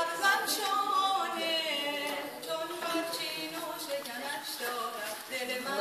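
A woman's voice singing unaccompanied, holding notes and sliding between them.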